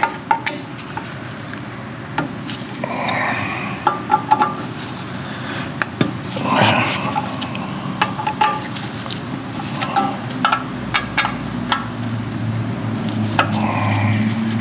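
Hand tools and small metal engine parts clinking, knocking and scraping at irregular intervals while a small-engine carburetor is unbolted. A low steady hum comes in near the end.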